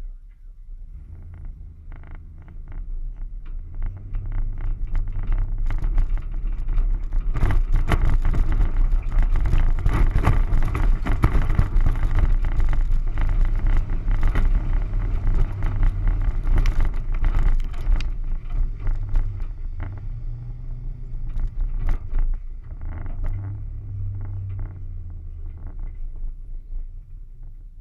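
Off-road vehicle's engine pulling hard through mud, with a rushing noise and spattering mud clods. It builds over the first few seconds, is loudest in the middle, and eases toward the end.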